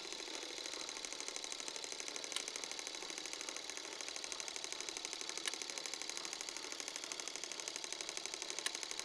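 Film projector clatter as a sound effect: a faint, rapid, even mechanical ticking with hiss, and a sharper click about every three seconds.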